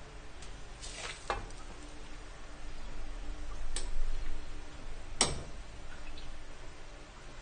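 Metal scoop stirring and scraping dry sticky rice in a wide metal pan as the rice is dry-toasted over a gas flame: a few sharp scrapes and clinks, the loudest about five seconds in, over a low steady hum.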